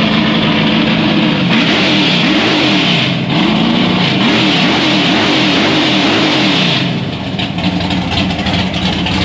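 Chevrolet Opala drag car's engine running loud and being revved, its pitch rising and falling in repeated blips, then settling to a lower, uneven idle about seven seconds in.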